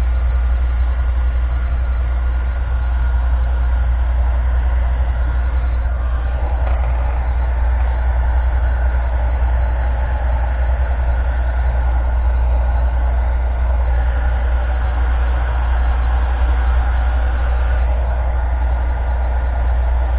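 Heat gun running on its maximum setting: a steady blowing hum. The sound shifts a little about six seconds in.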